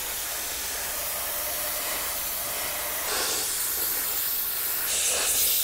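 Cold Jet dry ice blaster nozzle jetting compressed air and dry ice pellets onto an aircraft piston engine: a steady hiss that grows louder and sharper about three seconds in.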